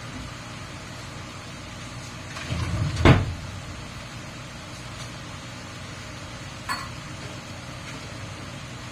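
Kitchen handling sounds over a steady low hum: a short clatter building to one loud, sharp knock about three seconds in, and a lighter click near the seven-second mark.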